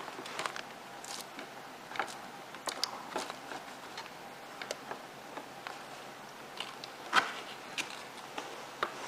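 Scattered light clicks and knocks of a motorcycle's plastic belly pan and lower fairing being worked loose and taken off, with one sharper knock about seven seconds in.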